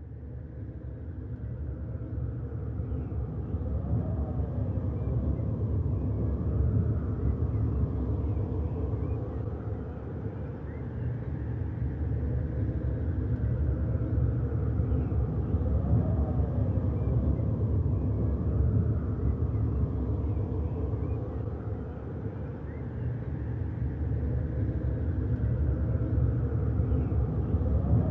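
Low ambient rumble drone with slow whooshing swells that rise and fall, repeating about every twelve seconds like a loop; it swells up over the first few seconds.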